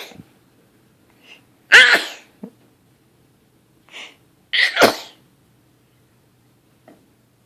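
A young child sneezing twice, about three seconds apart, each sneeze preceded by a quick in-breath.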